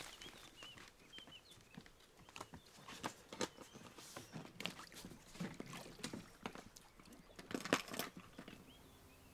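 Scattered light knocks and scuffs of people moving about and handling things on a wooden dock, irregular and uneven, with the sharpest knock near the end. A few faint bird chirps come in the first second or so.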